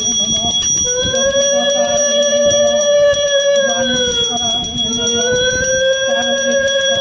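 Puja bell rung continuously with quick, even strikes. Two long held tones, each about three and a half seconds and rising slightly before falling away, sound over the ringing.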